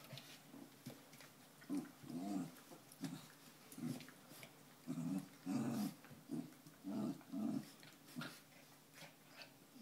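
West Highland white terriers play-fighting, giving a string of short, low growls one after another, thickest around the middle.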